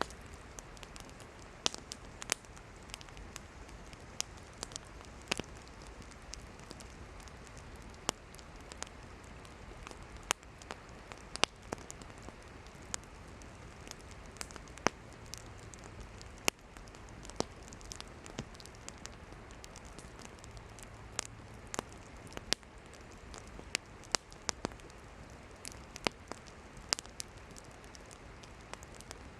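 Wood campfire burning: irregular sharp pops and crackles from the firewood, sometimes a few a second, over a steady hiss of the flames.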